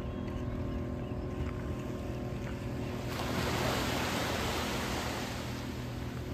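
A steady low engine hum, with a sudden rush of noise about three seconds in that fades away over the following seconds.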